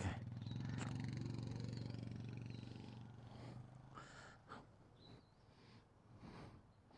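A small motorcycle's engine running as it rides away, its hum fading out over about three seconds; then only a few faint knocks.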